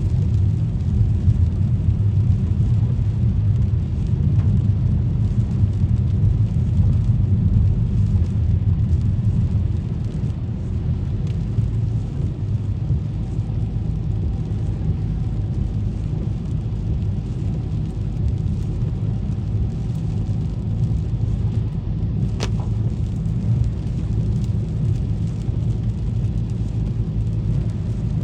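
Steady low rumble of a car driving on rain-wet streets, with a single sharp click about two-thirds of the way through.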